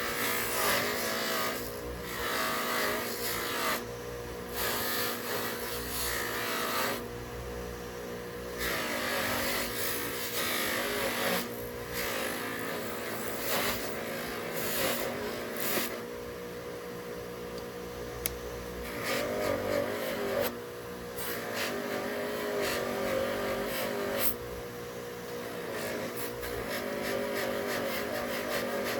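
An electric power tool runs with a steady hum, while rasping grinding noise comes and goes every second or two as metal is worked against it.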